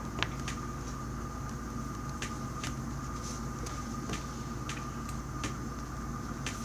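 A steady mechanical hum, like a fan or appliance running, with a few faint, short clicks scattered through it.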